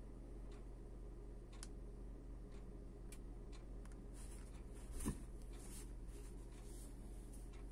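A pocket gimbal camera is set down on a cloth-covered surface: a soft thump about five seconds in, with fabric rustling around it. Faint ticks come roughly once a second over a low, steady hum.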